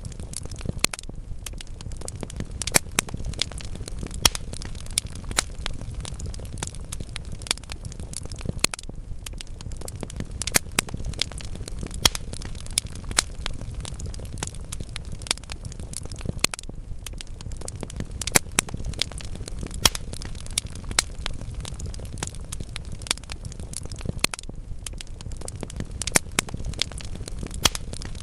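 Logs burning in a fireplace, crackling with frequent irregular sharp pops over a steady low rumble of the fire.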